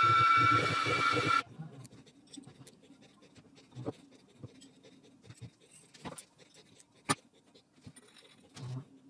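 A machine's loud, steady whine cuts off suddenly about a second and a half in. After that come sparse light metallic clicks and taps as small steel and brass parts are handled and screwed together with a hex key.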